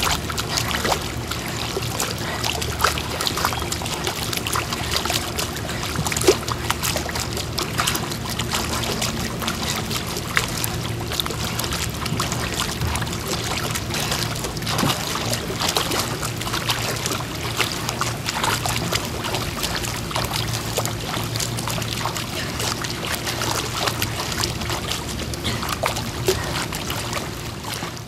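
Pool water splashing and churning as a person water-runs in place, arms and knees pumping through the surface, with many small splashes over a steady low hum.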